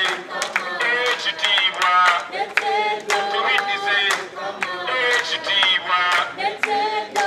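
A group of men and women singing together, clapping their hands in time.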